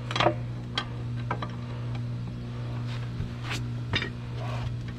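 Hand wrench working the blade bolt of an upturned Toro lawn mower: irregular sharp metallic clicks and clinks as the bolt is tightened by hand rather than with an impact wrench.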